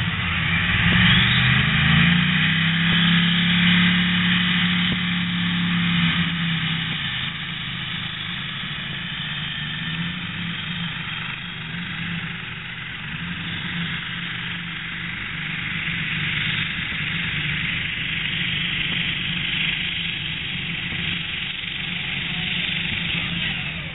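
Competition pulling tractor's engine running flat out under load during a pull. Its pitch climbs over the first couple of seconds and holds high, then wavers with smaller rises as the run goes on.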